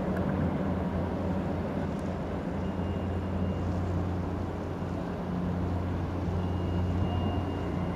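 A ship's engine running with a steady low hum as a tour boat manoeuvres to come alongside the pier.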